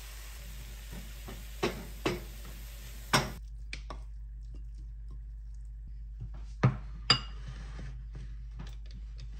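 Wooden spatula knocking against a stainless steel wok three times over a faint sizzle as stir-fried rice cakes are scraped out. The sizzle then stops, and a metal plate gripper gives light clicks and two sharp clanks, the second ringing briefly, as it lifts a plate out of a steamer.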